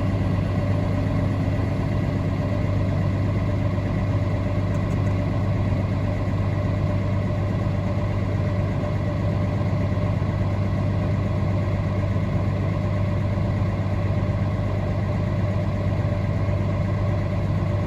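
Tractor engine pulling a grain cart, running at a steady speed with an even low hum that doesn't change.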